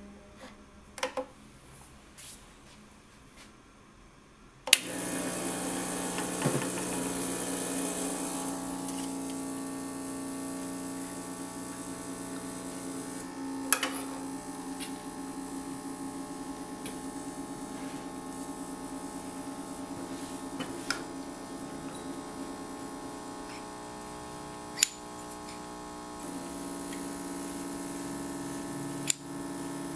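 Gaggia Classic Pro espresso machine's vibratory pump switching on about five seconds in and humming steadily while it pulls an espresso shot; the hum changes tone a few seconds before the end. A few sharp clicks sound over it, and a couple come before the pump starts.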